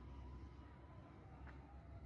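Near silence: faint outdoor ambience, a low rumble with a few faint, thin, held whistling notes.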